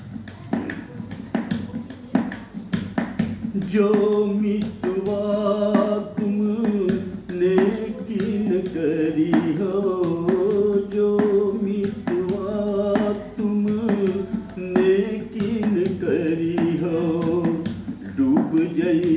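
A man singing without accompaniment, holding long notes with a wavering pitch that come in about four seconds in, over a steady tapping beat.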